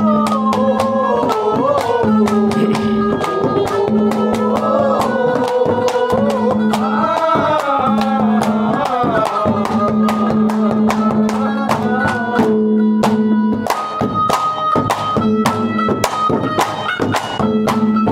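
Haryanvi ragni folk music, an instrumental interlude between sung lines: a wavering, gliding melody over a steady drone and quick, regular drum strokes. About two-thirds of the way in, the melody settles into held high notes.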